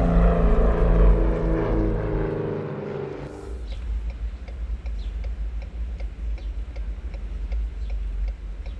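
Sustained music chords fade out over the first three seconds or so. Then comes the low steady rumble of a car driving, heard inside the cabin, with a light regular ticking about three times a second.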